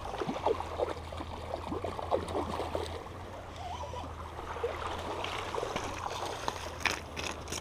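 Water lapping and trickling against a rocky shoreline: many small, irregular splashes over a steady low hum, with a few sharp clicks near the end.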